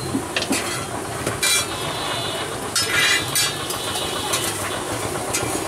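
Street background of traffic and running engines, with a few short metallic clinks and scrapes of cooking utensils, the loudest about one and a half and three seconds in.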